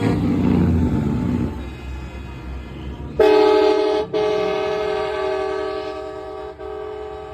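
A low engine rumble, then about three seconds in a semi truck's air horn sounds loud in one long blast. The blast breaks for an instant about a second later and slowly fades near the end.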